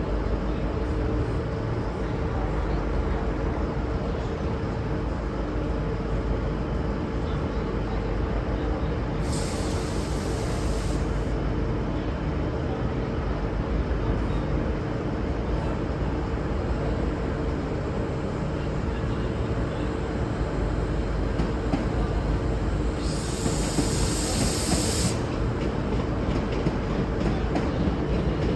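V/Line Sprinter diesel railcar set running with a steady drone, broken twice by a short burst of air hiss lasting about two seconds, the first about ten seconds in and the second near the end.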